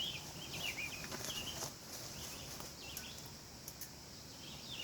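Songbirds singing: quick, repeated high chirping phrases, thickest in the first second and picking up again near the end, over a faint steady high hiss of outdoor ambience.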